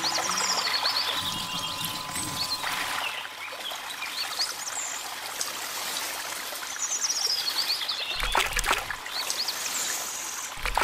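A thin stream of water trickling and pouring, with birds chirping high over it. A few soft low bumps come near the end.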